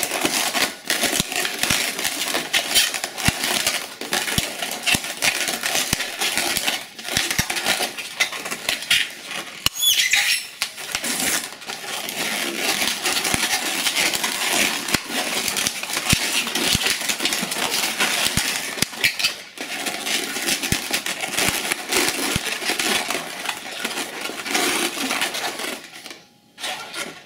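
Latex modelling balloons rubbing and squeaking against each other as hands twist and wrap them: a steady scratchy friction with small clicks, and a higher wavering squeal about ten seconds in. The handling noise stops shortly before the end.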